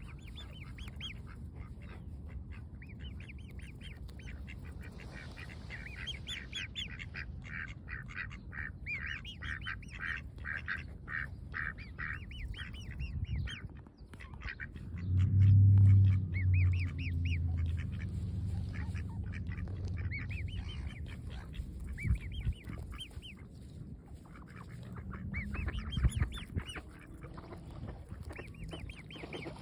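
A cygnet peeping while it grazes: long runs of quick, short, high-pitched calls, several a second, pausing briefly a little before halfway. Around the middle, a loud low hum is the loudest sound for a couple of seconds.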